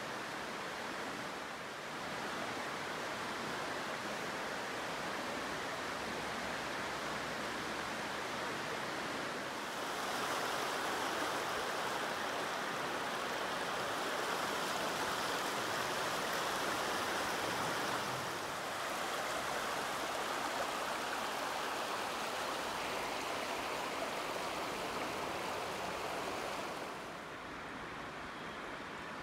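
Shallow river water running over rocks in a steady rushing babble. It grows louder from about a third of the way in for several seconds, then eases back.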